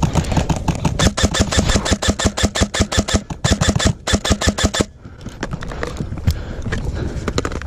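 Airsoft rifle firing on full auto: a rapid stream of sharp shots, about ten a second, that stops about five seconds in, followed by scattered fainter shots.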